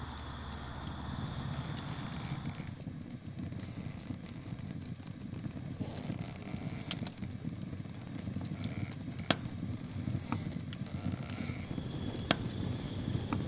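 Open fire burning: a steady low rumble of flames with scattered sharp pops and crackles, the loudest about two-thirds through.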